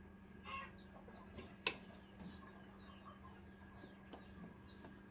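Birds chirping: a run of short, high chirps falling in pitch, about two a second. A single sharp click comes about a second and a half in, over a faint steady hum.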